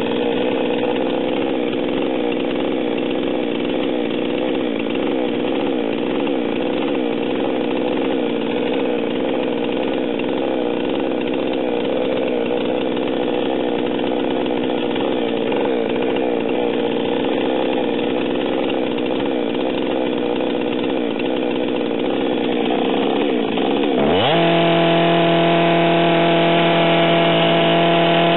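Stihl MS 462 chainsaw engine running at a steady fast idle in the choke/start position with the chain brake on, the first stage of resetting its electronic fuel-metering controller. About 24 seconds in, the trigger is held and the engine revs up sharply to a higher, steady speed as the controller starts calibrating.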